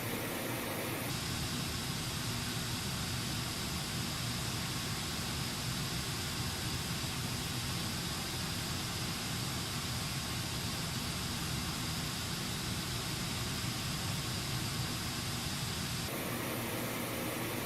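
Pink noise played through a Bluetooth speaker, a steady hiss. About a second in its tone changes, with more bass and a duller top, and it changes back near the end, as playback switches between the two speakers being compared.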